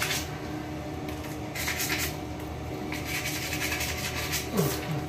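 Fingers scrubbing shampoo lather into a wet dog's long coat: soft, irregular wet rubbing in short spells. A brief low falling sound comes near the end.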